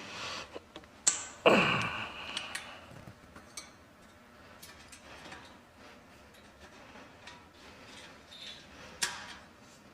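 Handling sounds on a repair bench: sharp clicks and taps of metal parts and tools, with a louder scrape about a second and a half in that falls in pitch, and another sharp click near the end.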